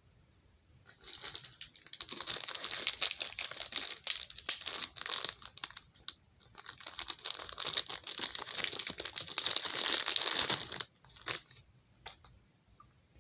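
Plastic crinkling and rustling as fidget toys are handled, in two long stretches with a short break between, followed by a few scattered clicks.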